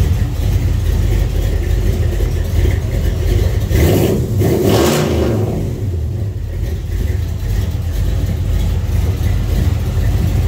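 A 1970 Chevelle's engine running after a cold start, with a quick rev about four seconds in. The sound stops abruptly at the end.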